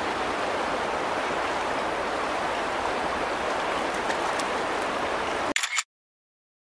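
River water running steadily, an even rushing noise that cuts off abruptly a little over five seconds in, followed by dead silence.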